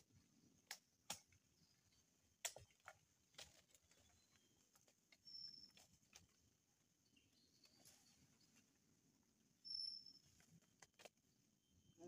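Faint, sparse knocks, scrapes and snaps of a man climbing a tree trunk through branches and leaves. Two short high chirps come in about five and ten seconds in, over a faint steady high hiss.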